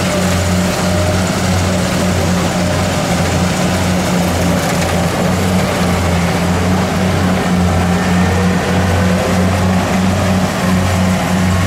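Kubota DC70 rice combine harvester running steadily at working speed, its engine giving a strong low hum under the clatter of the machine.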